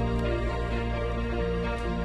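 Soft background music with sustained notes over a low bass.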